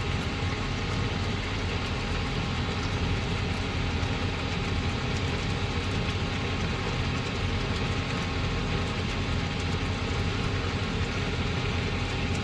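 Steady rushing noise with faint crackles, typical of a gas stove burner under a pan of ginger paste and jaggery being cooked down until thick.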